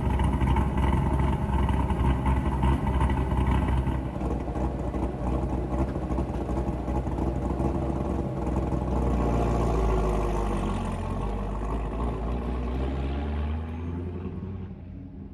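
Sports car engine running with a deep, loud rumble, revving up about two-thirds of the way in, then fading away over the last couple of seconds.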